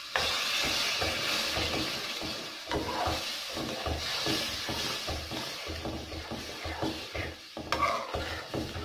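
Metal spoon stirring and scraping flour halwa in a metal karahi while the mixture sizzles and hisses from water just added to the hot fried flour and caramelised sugar. The sizzle is loudest at the start and dies down over the following seconds, with the scraping strokes continuing.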